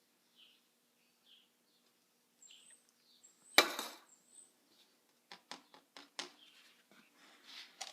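Faint bird chirps, then one sharp loud knock about halfway through, followed by a quick run of lighter knocks and clicks, as of things being handled or tapped.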